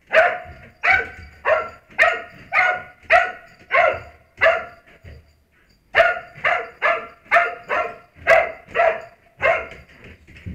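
A search-and-rescue dog in training barking in a steady run of about sixteen barks, roughly two a second, with a brief pause halfway through. This is the repeated bark that a rescue dog gives to alert on a person it has found.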